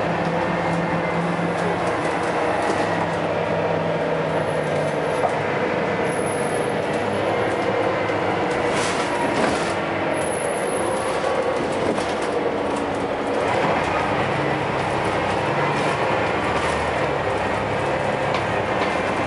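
Scania L94UB bus's diesel engine and ZF automatic gearbox running under way, heard from inside the passenger saloon with the usual engine thrash. The engine note shifts about four seconds in and again about two-thirds of the way through, with a few short rattles from the interior.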